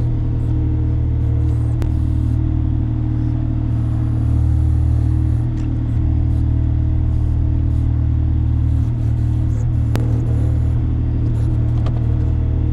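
Takeuchi TB235-2 mini excavator's diesel engine running steadily under hydraulic work, heard from inside the operator's cab.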